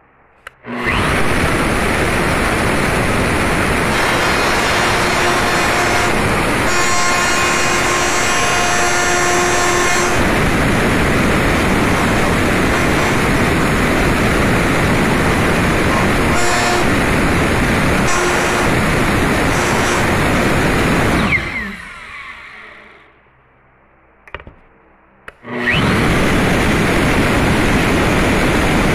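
Router running at full speed, its end mill cutting through an aluminium profile, with a pitched whine rising above it for a few seconds. About two-thirds through, the motor is switched off and winds down. After a short quiet gap with a couple of clicks, it starts up again near the end.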